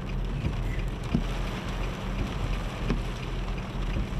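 Strong wind and rain against a car, heard inside the cabin: a steady rushing noise with a low rumble and a few soft thumps.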